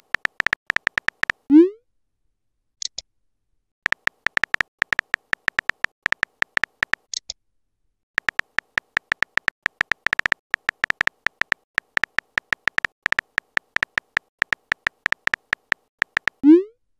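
Electronic keyboard tap sounds from a texting app: one short beep per typed letter, in quick runs with pauses between them. A rising swoosh of a message being sent comes about a second and a half in and again near the end, and brief high chirps come twice in between.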